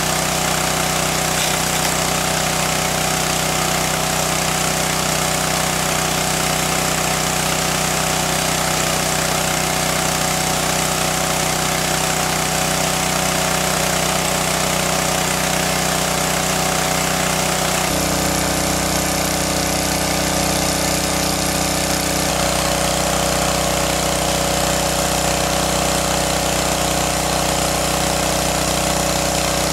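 Small engine-driven water pump running steadily, a constant mechanical drone; its pitch shifts slightly about eighteen seconds in and again a few seconds later.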